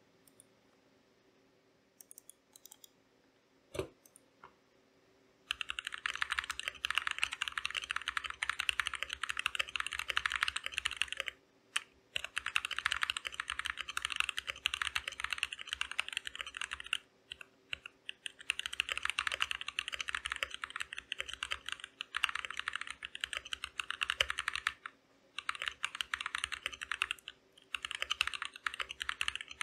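Typing test on a Keychron K2 V2 aluminium-frame mechanical keyboard fitted with Gazzew Boba U4T tactile switches: rapid key clacks in runs of several seconds with short pauses. It starts about five seconds in, after a few isolated clicks and a single knock.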